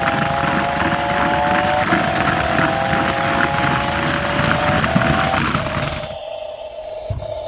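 Toy remote-control stunt truck driving: the high whine of its small electric motors climbs in pitch in runs of a couple of seconds, over a rough hiss from the wheels on the ground. The hiss stops about six seconds in, leaving a steady motor whine.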